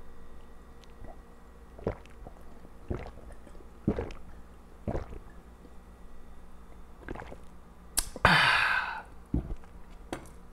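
A person gulping water from a glass mug, swallowing about once a second, then letting out a loud breathy exhale about eight seconds in.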